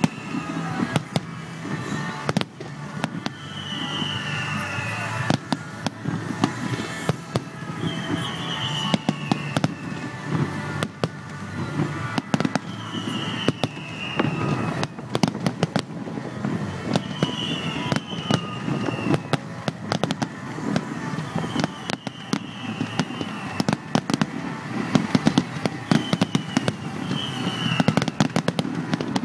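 Aerial firework shells bursting in quick succession throughout, a dense run of sharp bangs and crackles.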